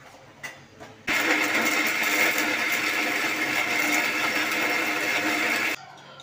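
Electric mixer grinder with a steel jar grinding onion masala into a paste. It is switched on about a second in, runs steadily for a little under five seconds, and is switched off abruptly.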